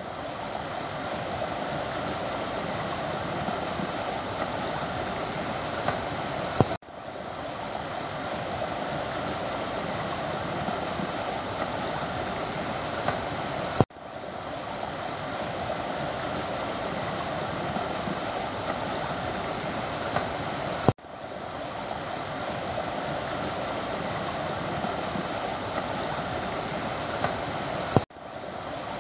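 Muddy floodwater running steadily over a dirt street and through yards after a heavy storm. A sharp click and a brief dropout break it about every seven seconds, at each cut between clips, and the water sound fades back in after each.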